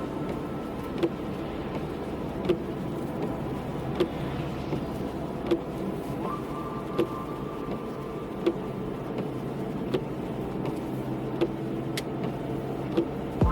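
A car running at a steady idle, with a sharp click about every second and a half.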